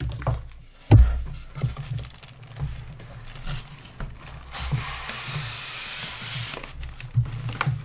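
Cardboard box being handled and torn open: low knocks and a thump, then about two seconds of steady tearing, scraping noise.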